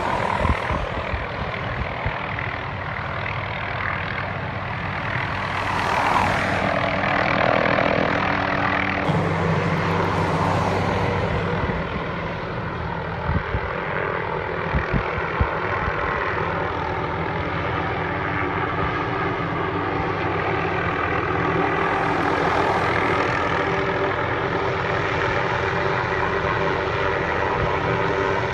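Hughes light helicopter flying, its rotor beating and turbine engine whining steadily, the sound swelling and easing a little as it moves about.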